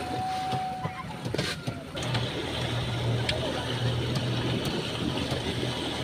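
Speedboat's Mercury outboard motor running steadily under load while towing a banana boat, with water rushing along the hull. The rushing hiss grows louder about two seconds in.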